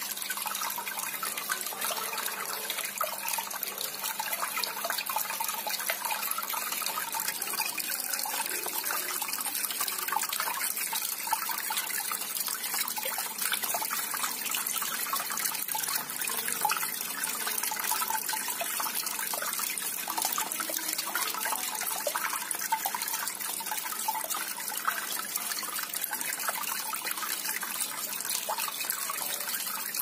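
Water steadily trickling and splashing down the steps of a small homemade thermocol (polystyrene) tabletop fountain onto wet pebbles, with a faint steady hum underneath.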